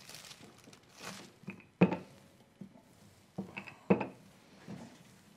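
Wooden rolling pin being worked over a felt pad to press a foil print, with rubbing sounds and several sharp knocks, the loudest about two and four seconds in.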